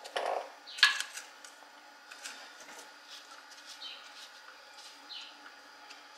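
Metal hand tools clinking and knocking, with one sharp clank about a second in and lighter clicks after it.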